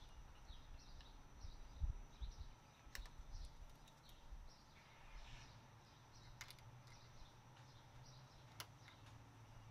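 Near silence, with a few faint sharp clicks of hand tools and plastic trim clips as the radiator cover panel is worked back into place, over a low outdoor rumble.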